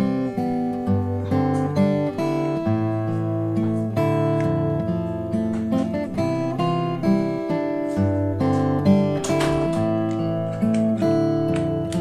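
Background music: acoustic guitar playing a steady run of plucked and strummed notes.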